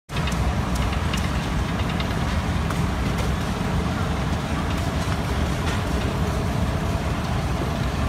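Steam traction engine running while belted to a sawmill: a steady low rumble with faint scattered clicks.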